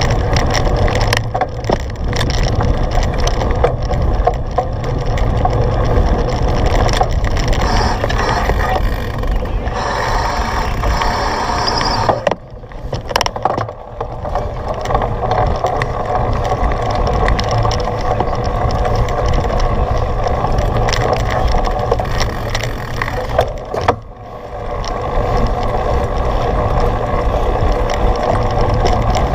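A cyclocross bike ridden at race speed: wind buffets the microphone while the bike rattles and clicks over rough, muddy ground. It eases off briefly twice.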